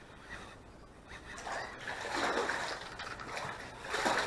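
A hooked white crappie splashing and thrashing at the water's surface on the line, in uneven bursts, with the biggest splash near the end.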